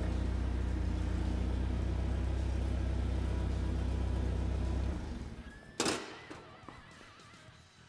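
A machine runs with a steady low hum, then shuts off and dies away about five seconds in. About a second later comes a single sharp clank with a short ring.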